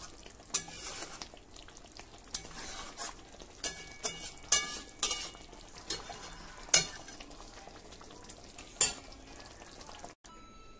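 Hilsa pieces in mustard gravy sizzling in a pan, with a spatula stirring and scraping against the pan in irregular sharp clacks over a steady low sizzle.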